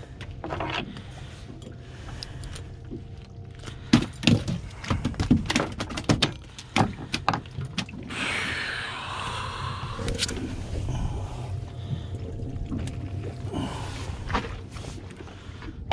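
Knocks and thumps on a fiberglass boat deck and hatch while a caught tautog is handled, a dense run of them from about four to seven seconds in, the loudest near the start of the run. About eight seconds in comes a rushing, splashing water sound lasting a couple of seconds, over a steady low hum.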